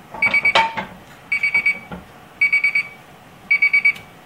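Kitchen timer alarm beeping in groups of four quick high beeps, about one group a second, signalling that the set cooking time is up. A few knocks come between the beep groups.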